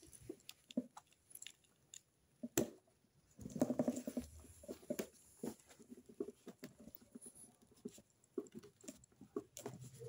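Plastic garden-hose quick connector being pushed and twisted onto a WAP Valente pressure washer's water inlet: scattered small clicks and scraping, with one sharp click about two and a half seconds in.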